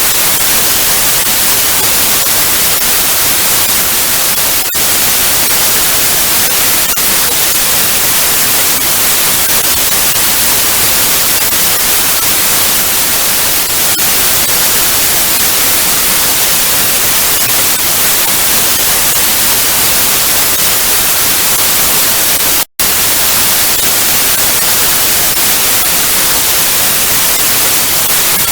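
Analog TV static: a loud, steady hiss of white noise, strongest in the high range. It cuts out for a split second near the end.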